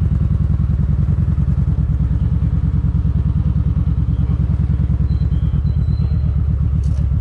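Motorcycle engine running steadily and close by, a fast, even low pulse with no revving.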